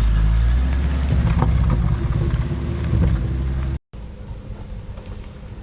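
Off-road 4x4's engine running. It cuts off abruptly almost four seconds in and gives way to a quieter, steady low hum.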